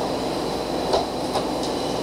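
Steady hum and hiss of room noise, with two light knocks a little under half a second apart about a second in.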